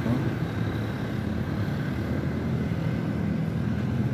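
SJRC F22S quadcopter drone's propellers running steadily in flight: an even hum with a faint high whine over it.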